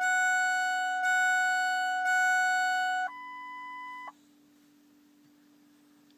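Ford truck's dashboard warning chime dinging about once a second with the key on before cranking. It switches to a quieter, higher tone for about a second, then stops just after four seconds in, leaving a faint steady hum.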